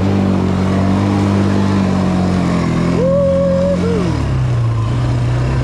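ATV (quad bike) engine running steadily under throttle, its note dropping about four seconds in as the throttle eases.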